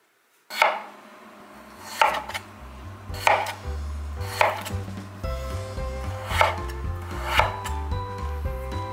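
Chef's knife slicing through a peeled raw potato and striking a bamboo cutting board, six sharp chops about a second or so apart, the first the loudest. Background music with a bass line comes in about a second and a half in.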